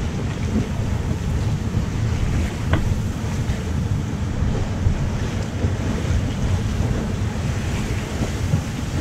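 Steady wind noise on the microphone over the rush of water past a sailboat's hull while it sails heeled over.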